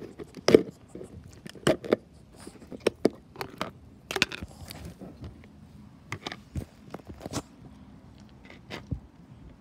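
Irregular sharp plastic clicks and knocks from a clear snap-lock food container being opened: the latch flaps snapped up and the lid pulled off, then the hard plastic tub tapping and scraping as round dog treats are handled inside it. The loudest clicks come in the first two seconds.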